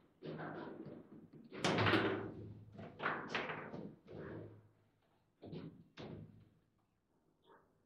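Table football play: the ball smacked by the rod figures and knocking about the table, with the rods clacking, a string of sharp knocks and thuds, the loudest about two seconds in and sparser after.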